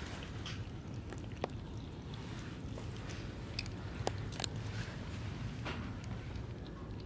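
Kittens chewing cat food from a small plastic tray, with scattered small clicks and smacks, over a steady low background hum.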